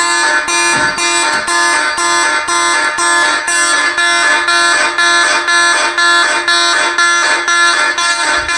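Federal Signal 450D Vibratone fire alarm horns sounding a march-time pattern, a loud buzzy horn pulsing on and off about two and a half times a second.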